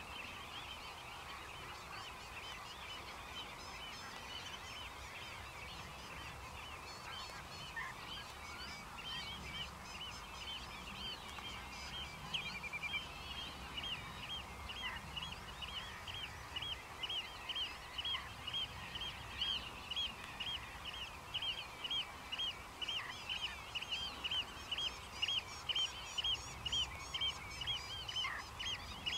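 Birds calling: a busy background of short chirping notes that settles into a regular run of about two calls a second, getting louder toward the end.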